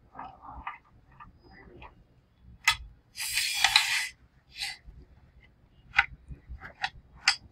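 Handling noise from the circuit board and metal case of an opened UPS: several sharp clicks and knocks, with about a second of scraping in the middle.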